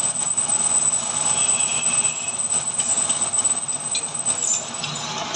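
Metal lathe running, a steady mechanical noise with a thin high-pitched whine over it.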